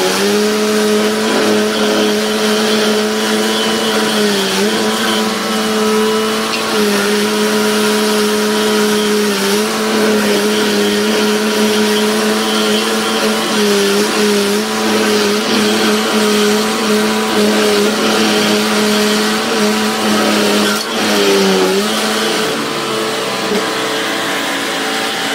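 Rayco stump grinder's engine running at high speed while the cutter wheel grinds into a stump. The pitch sags briefly several times as the wheel bites into the wood and loads the engine.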